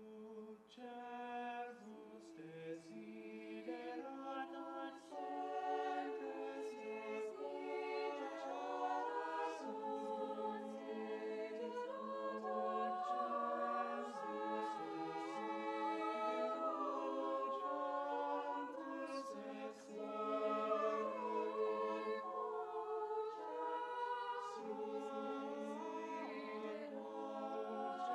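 Mixed youth choir of treble and lower voices singing a cappella in several parts, holding sustained chords. The singing starts soft and swells over the first several seconds.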